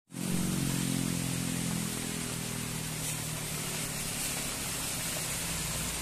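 Tour bus driving past on a rain-wet road. Its engine hum is strongest in the first couple of seconds and then fades, under a steady hiss of tyres through water.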